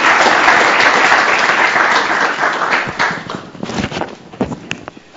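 Audience applauding after a talk: dense, steady clapping that thins out about three seconds in to a few scattered claps and dies away before the end.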